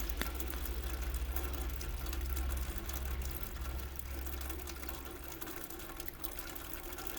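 Steady rain with water splashing and trickling, many small drop ticks through it, over a low rumble of city traffic that slowly fades.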